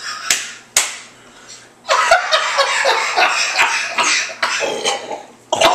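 Two sharp smacks near the start. Then, from about two seconds in, several seconds of a man's hard laughter mixed with coughing from the eater, who is choking down a mouthful of pungent Limburger cheese.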